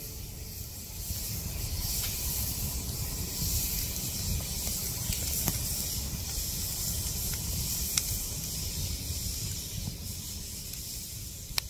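Wood fire burning in a metal fire pit: a steady hiss and low rumble of the flames, with a few sharp crackles, the loudest near the end.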